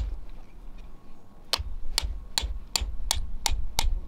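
Tent peg being driven into the ground with a hammer: a steady run of about seven sharp strikes, nearly three a second, starting about a second and a half in.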